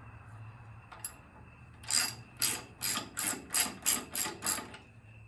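Hand socket ratchet wrench working a bolt: a quick series of about nine ratcheting strokes that starts about two seconds in.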